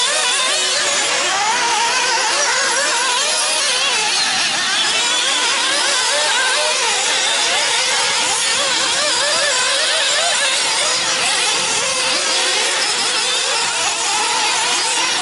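Several nitro RC buggies' small two-stroke glow-fuel engines running at high revs. They overlap in a constant high whine whose pitch keeps rising and falling as the buggies accelerate and brake.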